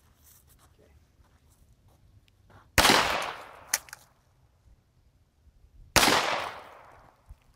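Two shots from a Kimber .45-calibre pistol, about three seconds apart, each followed by a long echoing tail.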